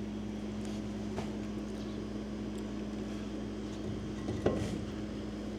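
A steady low machine hum, with a faint click about a second in and a single knock about four and a half seconds in, as the heavy cast-iron flywheel is worked onto the crankshaft hub.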